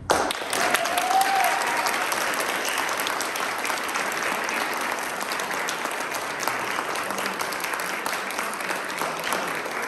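Applause from a small audience of a dozen or so people, starting suddenly and continuing steadily, with a brief rising-and-falling tone about a second in.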